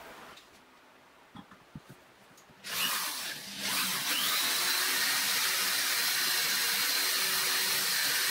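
Cordless drill running with a twist bit boring into the base of a stainless steel pot, metal on metal with a steady high whine. It starts about two and a half seconds in, eases off briefly, then runs steadily. A few light handling clicks come before it.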